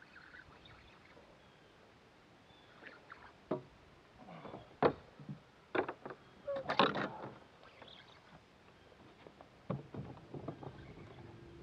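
Scattered knocks, taps and rustles of a person shifting and standing up on a fishing boat's deck, with the loudest cluster about seven seconds in.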